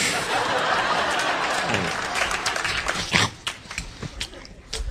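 Studio audience laughing and applauding. It starts suddenly and thins out after about three seconds into scattered claps and laughs.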